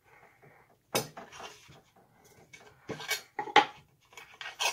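A Northwest Short Line Chopper hobby cutting tool being picked up and set down on the workbench: a few separate sharp clicks and knocks of hard plastic and metal, the loudest a little past halfway.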